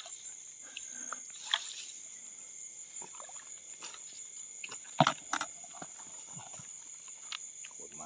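Steady high-pitched chorus of night insects, with scattered rustles and light clicks of handling, and two sharp knocks close together about five seconds in.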